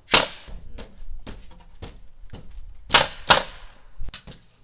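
Framing nail gun firing into lumber: a sharp shot at the start, two more close together about three seconds in, and a couple more after four seconds, with lighter knocks of wood work between.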